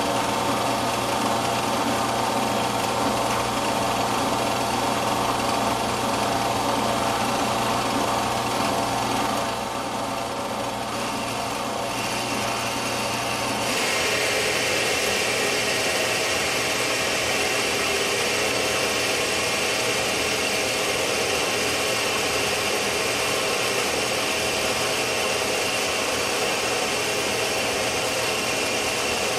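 Metal lathe running under load as its tool takes a heavy roughing cut on a steel bar: a steady machine whine with the hiss of the cut. The sound gets brighter and harsher about fourteen seconds in.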